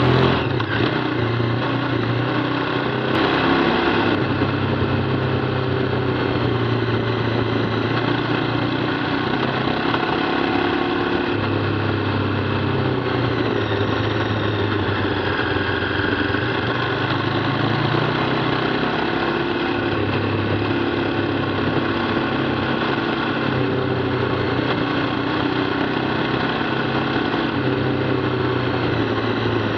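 KTM 990 Adventure's V-twin engine running steadily under way on a gravel road, its note shifting pitch a few times as speed changes, over steady road and wind noise, heard from a camera mounted on the bike.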